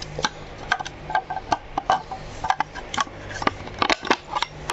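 Irregular sharp clicks and light knocks of hands and tools handling the metal parts of an overlock sewing machine being worked on, several a second, over a steady low hum.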